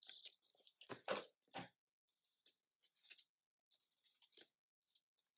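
Faint handling of a picture book: a few soft knocks about a second in as it is set down on a table, then a run of short paper rustles and flaps as its pages are turned.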